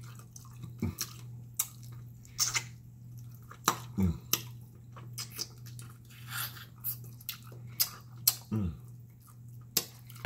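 Close, wet chewing and lip-smacking while eating by hand: sharp smacks and finger-sucking clicks come at irregular moments over a steady low hum.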